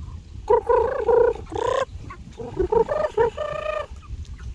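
Domestic ducks quacking: a run of short, nasal calls in two bursts, about half a second in and again from about two and a half seconds.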